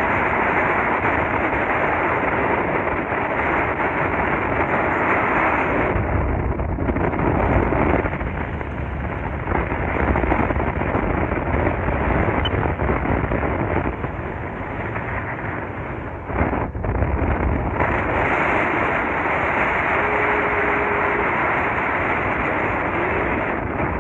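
Strong storm wind blowing across the microphone: a loud, continuous rushing noise with a deep rumble that rises and falls in gusts.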